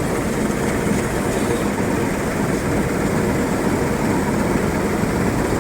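Combine harvester running steadily at working speed while it unloads harvested paddy grain into a tractor trolley.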